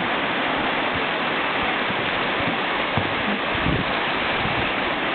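Whitewater river rapid: a steady, even rush of fast water over rocks.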